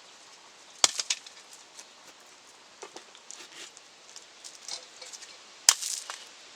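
Pieces of kiln brick and debris being knocked loose and clattering. Two sharp knocks come about five seconds apart, each followed by a brief rattle of smaller pieces, with light ticks between them.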